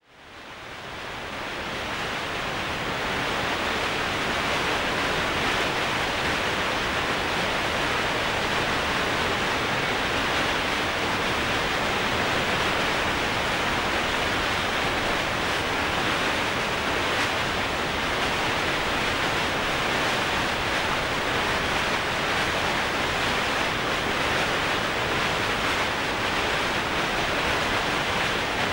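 Steady rushing of white water on the Merced River, fading in over the first few seconds and then constant.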